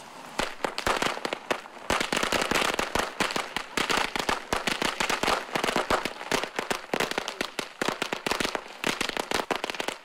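A string of firecrackers going off: rapid, irregular bangs with hardly a break, starting about half a second in and growing denser and louder from about two seconds in.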